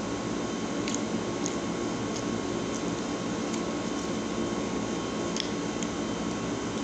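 Steady background hiss with a faint steady tone, and a few faint clicks of a plastic fork against a takeaway food container as the last bits of waffle are scraped up.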